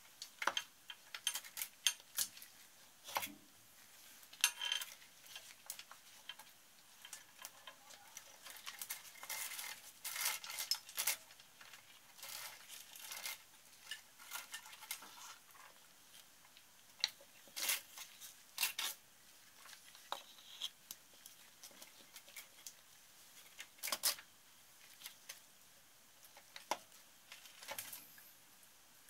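Scattered light metallic clicks and clinks, irregular and sharp, from the piston and rings of a Yamaha SRX600 engine being handled on a wooden support block over the crankcase. Near the end the cam chain's links clink as it is lifted.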